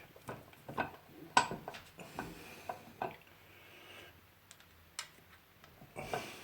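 Irregular light metallic knocks and clicks, about nine of them with the loudest about a second and a half in, from a socket and small fuel-valve parts being handled and tapped together on a bench.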